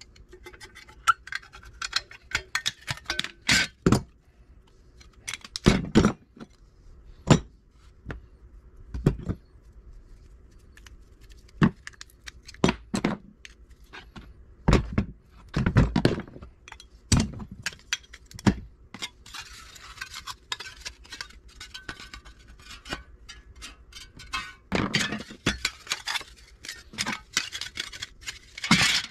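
Fan motor parts, screws and hand tools clinking and knocking on a metal workbench tray while window fan motors are taken apart, with scattered sharp impacts. About two-thirds of the way through there are a few seconds of light scraping.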